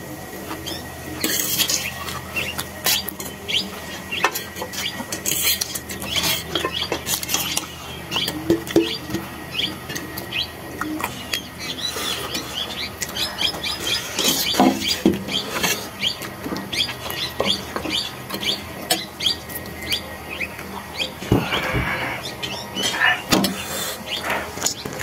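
Metal forks clinking and scraping on steel plates in irregular clicks, with the noises of two people eating instant noodles.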